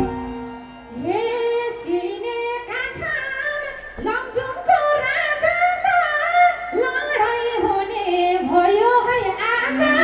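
A woman singing a Nepali dohori verse solo into a microphone over the PA, her voice bending and ornamenting the melody, with little instrumental backing.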